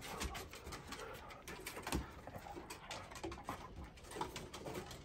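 Dogs wrestling in play on a wooden porch deck: a busy run of short taps and scuffles, with a few soft cooing animal calls among them.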